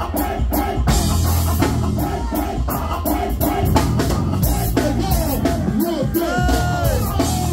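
Live band music played loud: a steady drum beat, deep bass and keyboard, with a voice singing over it.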